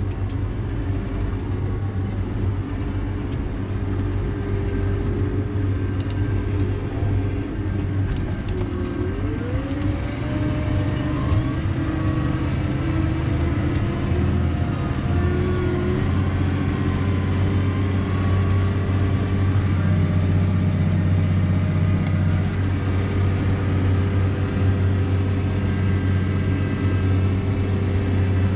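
Tractor engine running steadily under load while ploughing, heard from inside the cab. About nine seconds in, a whine rises in pitch.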